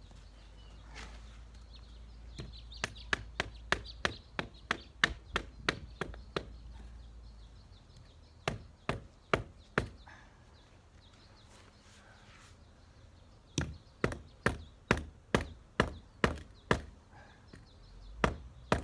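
Repeated sharp knocks of something striking a freshly glued PVC fitting to drive it onto a sprinkler pipe before the solvent cement sets. The blows come in three runs of several strikes, about three a second, the fitting being hard to seat.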